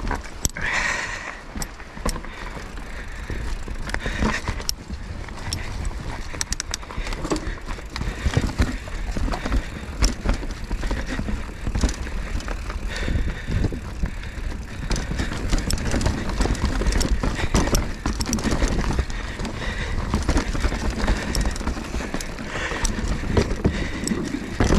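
Mountain bike riding fast down a rough dirt trail: tyres running over dirt and roots, with chain and frame clattering in irregular knocks. Wind rumbles on the microphone throughout.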